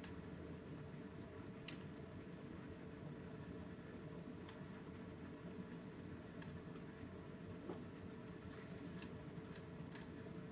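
Wind-up mechanical bedside clock ticking faintly and steadily, about five ticks a second, with one louder click about a second and a half in.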